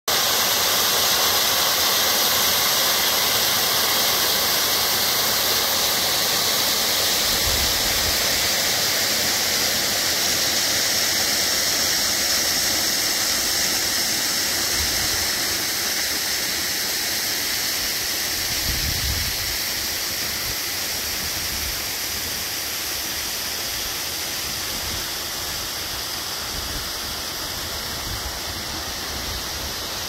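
Small waterfall pouring off a rock cliff onto a stony beach: a steady rushing of falling water that slowly fades over the second half.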